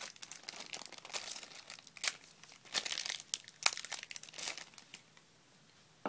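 Thin plastic bag crinkling and crackling in the hands as a phone battery is unwrapped from it, in quick irregular crackles that die away about five seconds in.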